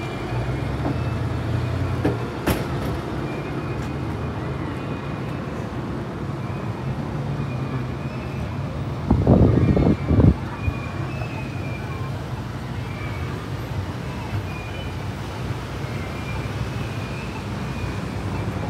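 Street traffic with a steady low engine drone. About nine seconds in comes a loud, low rush lasting about a second and a half.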